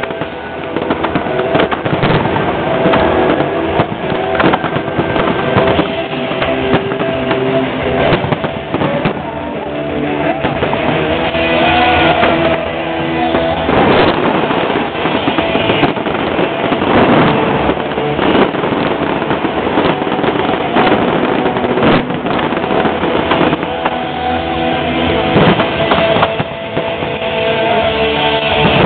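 Music playing throughout, with fireworks shells bursting over it in several sharp bangs and crackles.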